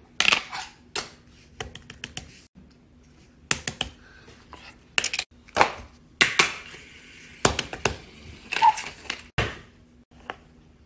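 Fidget toys being handled, giving an irregular string of sharp clicks and snaps, some followed by a short crackly rustle.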